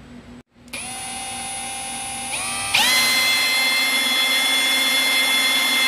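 Cordless drill spinning a hole saw into the plastic door trim panel: the motor whine starts under a second in, steps up twice in speed and loudness, then runs steady at full speed.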